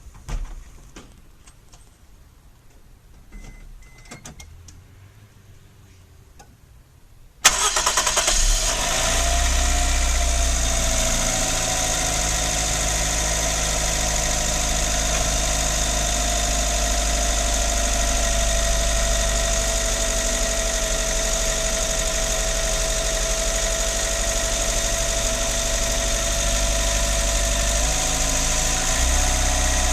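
A few faint clicks, then the Daihatsu MAX RS's JB-DET turbocharged four-cylinder starts suddenly about seven seconds in and idles steadily, with a steady high tone over the idle. This engine is making a light rattling (karakara) noise like a broken fan blade, at idle and on the move; the owner doubts it is the turbo because there is no loss of power.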